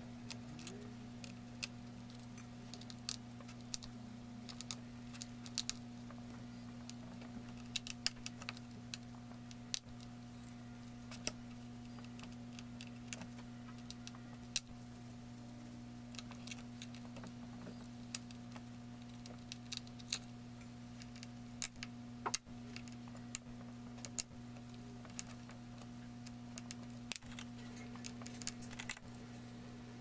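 Scattered small clicks and taps of a jeweler's screwdriver and tiny screws against a laptop's plastic bottom cover as the screws are worked out, over a steady low electrical hum.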